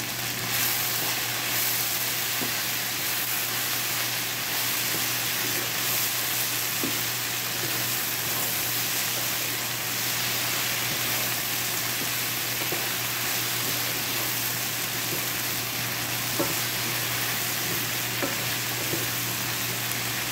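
Chopped okra frying with a steady sizzle in a non-stick frying pan while a wooden spatula stirs it, with now and then a light tap or scrape of the spatula on the pan.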